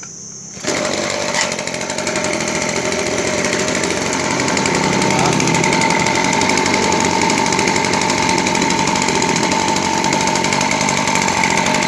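Mitsubishi TLE27 26cc two-stroke brush cutter engine catching suddenly about a second in after a pull start, then running steadily, growing a little louder over the first few seconds. It runs very smoothly.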